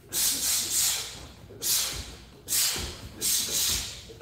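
A martial artist shadow-boxing a punch-and-kick combination, letting out a quick run of sharp hissing breaths through the teeth, about six in four seconds, one with each strike. Bare feet give low dull thuds on the training mat a few times in the middle.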